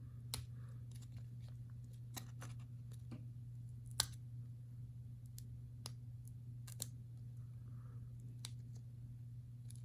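Faint scattered clicks and snips of a sealed trading-card package being worked open by hand, over a steady low hum. The strongest click comes about four seconds in.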